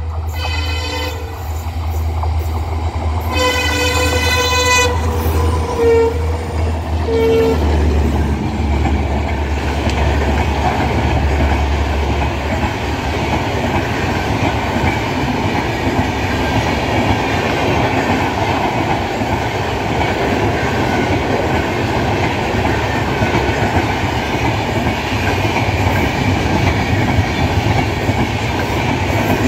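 An EMD WDP4 diesel locomotive sounds its horn: one blast ending about a second in, a second long blast about three seconds in, then two short toots. Its 16-cylinder two-stroke engine drones low as it passes. The LHB coaches then run past, their wheels clattering on the rails.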